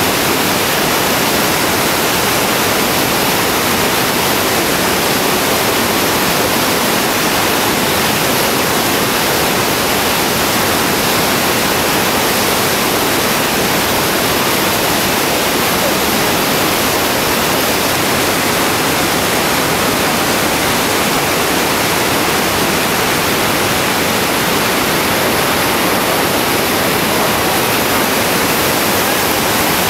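Whitewater rapids rushing, a loud, steady, unbroken noise of churning river water.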